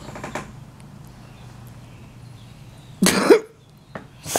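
A Boxer dog gives one short, breathy huff about three seconds in, ending on a brief rising note: a demanding noise from a dog pestering for food.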